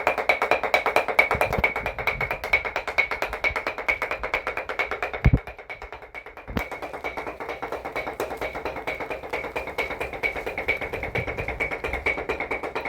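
Dadeumi: wooden paddles beating cloth on a stone in a quick, even rhythm, about six strokes a second. The beating breaks off briefly about five and a half seconds in, with a heavier knock just before and just after the break.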